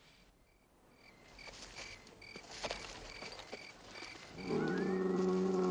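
Crickets chirping steadily, about two chirps a second. A little over four seconds in, a Brahman bull bellows: one long, low call that is the loudest sound.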